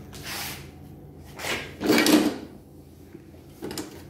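Clunking and sliding knocks from the folding handle of a Greenworks cordless lawn mower as it is swung down, its tube and plastic fittings knocking, the loudest knock about two seconds in.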